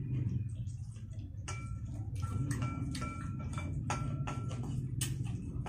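Metal spoon and chopsticks clinking and scraping against a ceramic bowl while mixing food: quiet at first, then from about a second and a half in a quick irregular run of light clicks, some with a short ring. A steady low hum sits underneath.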